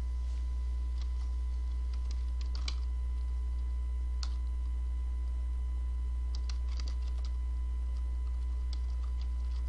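Scattered clicks of a computer keyboard and mouse, in a few small clusters as a word is typed, over a steady low hum.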